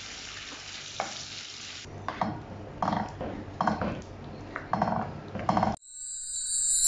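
Shrimp sizzling in a wok while a wooden spatula stirs them, then a run of separate stirring strokes through a thick, creamy vegetable and meat mixture, about one every three-quarters of a second. The cooking sound cuts off suddenly near the end and music rises in.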